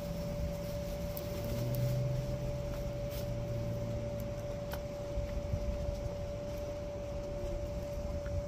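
A steady mechanical hum holding one constant tone, joined by a low drone that swells for a few seconds in the first half, with a few faint ticks.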